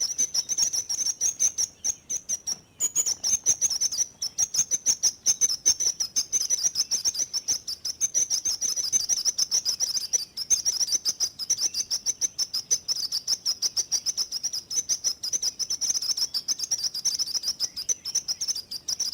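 A sparrow chirping in a fast, continuous run of short high notes, many a second, with a brief break about two seconds in.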